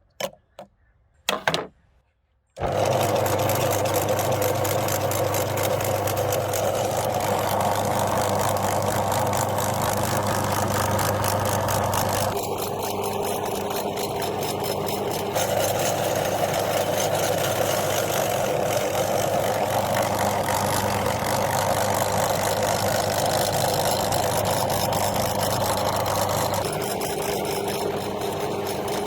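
A couple of short clicks, then an electric meat grinder's motor starts about two and a half seconds in and runs steadily with a constant hum while grinding candy, its tone shifting slightly a few times as the load changes.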